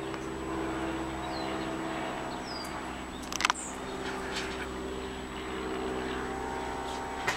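A steady mechanical hum holding one pitch throughout, with two short high chirps early and a sharp knock about three and a half seconds in.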